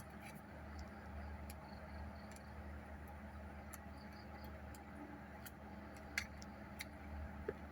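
Scattered faint clicks and light taps of small tools and phone parts being handled during a repair, with two sharper clicks near the end, over a steady low hum.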